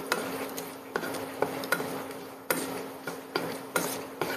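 Wooden spatula stirring cashews frying in ghee in a nonstick kadai, knocking and scraping against the pan about eight times at uneven intervals, over a faint frying sizzle and a steady low hum.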